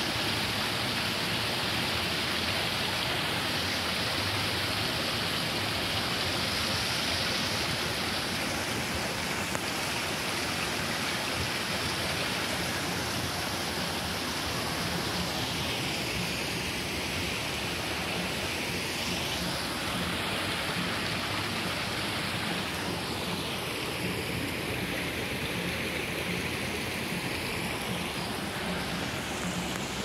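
Water splashing steadily from small cascades and a spout into a garden pond, a constant, even rush of falling water.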